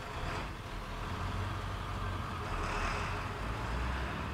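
A vehicle engine running steadily: a low rumble with an even hiss above it.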